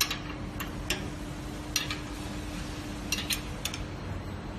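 Sharp metallic clicks and clinks, about six, spread irregularly with a couple close together after three seconds, from the grinder's grind-size adjustment being handled and locked. A faint steady hum runs underneath.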